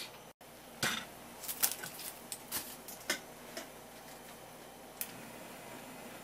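A quick series of sharp clinks and knocks of metal kitchenware, a wire-mesh strainer and a cooking pot, mostly in the first three and a half seconds, with one more about five seconds in.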